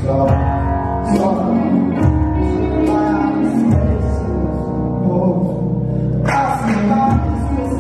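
Live band music with a man singing lead into a microphone, over sustained low notes that shift every second or two.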